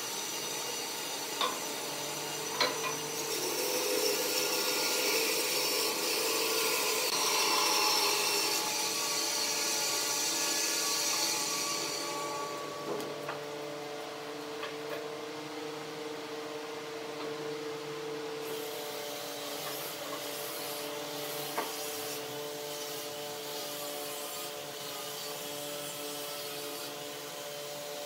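Wood lathe running with a steady motor hum while a turning tool scrapes and rubs against the spinning wood. The scraping is strong for the first half, then eases off about halfway through, leaving the lathe running with lighter contact.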